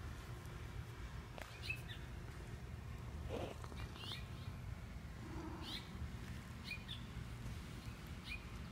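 A small bird chirping, short high notes repeated about once a second, over a low steady background rumble.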